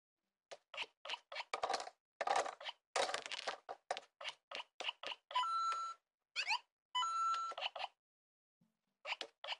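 LEGO Super Mario interactive figure playing a quick run of electronic game sound effects: short chirps and beeps, two held beeps near the middle and some rising blips, then a brief pause and a few more blips near the end.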